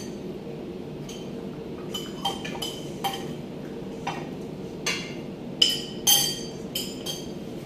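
Metal cutlery clinking against plates and a stainless steel serving bowl during a meal: about a dozen light, ringing clinks, the loudest two about five and a half and six seconds in, over a steady low hum.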